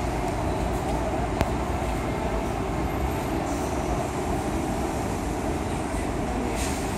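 Steady background noise of a busy indoor hall, a dense hum and rumble, with a single sharp click about a second and a half in.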